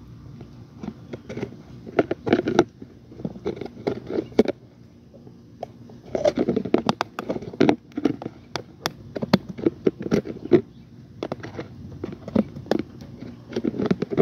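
Fingers prying and picking at the tight snap-on lid of a thin plastic deli container, the plastic clicking, crackling and scraping in irregular clusters as the lid resists being opened.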